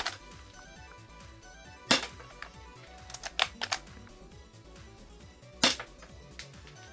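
Spring-powered air-cocking CZ75 airsoft pistol: two sharp snaps of it firing, about two seconds in and again near the end, with a quick cluster of smaller clicks between them as the slide is racked to cock it.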